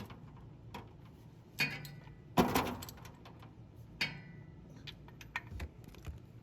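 A ratchet on a long extension working the 17 mm oil drain bolt loose: a series of separate metallic clicks and clanks, some ringing briefly, the loudest about two and a half seconds in.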